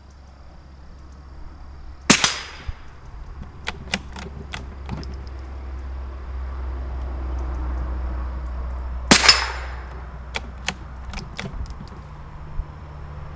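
Two rifle shots about seven seconds apart, each with a short echo trailing off. About a second and a half after each shot come four quick light clicks, the action being worked for the next round.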